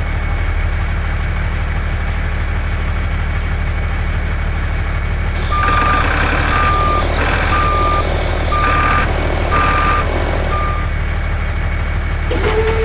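Truck engine running steadily, and about halfway through a reversing alarm beeps six times, about once a second.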